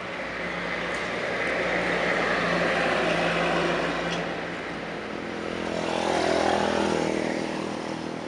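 Motor vehicles passing on a road: an engine sound swells and fades twice, the second pass about six seconds in carrying a clearer engine note.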